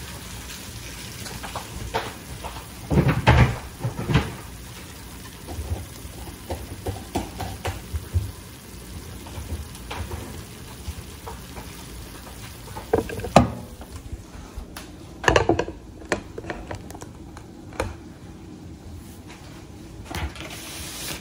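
Ground beef, onions and cheese sizzling steadily in a skillet, with a few sharp knocks and clatters of cookware. About two-thirds through, the sizzle drops out and only a few clunks of handling remain.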